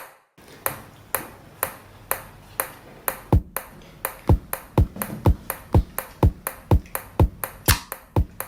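Electronic drum beat: sharp clicks about twice a second, joined about three seconds in by kick drums that drop quickly in pitch, so the hits come about four a second.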